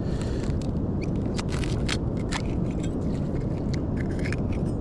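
Sea urchin's shell being cracked open, a series of short brittle cracks and crunches in two clusters, over a steady low rumble.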